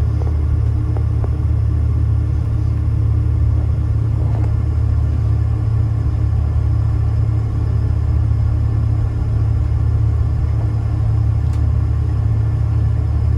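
Boeing 747-400's Pratt & Whitney PW4056 engines running, heard from inside the passenger cabin: a loud, steady low rumble with faint steady tones above it.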